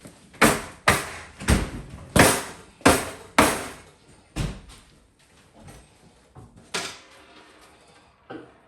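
A run of sharp wooden knocks on kitchen cabinet drawers: about seven in quick succession, roughly half a second apart, then two more spaced a couple of seconds apart.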